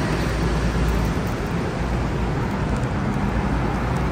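Steady city road traffic: a continuous rumble and hiss of passing cars.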